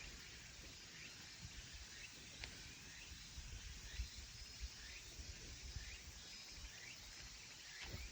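Faint rural outdoor ambience: a steady background hiss with short bird chirps scattered through it, every half second to a second, and irregular low rumbles underneath.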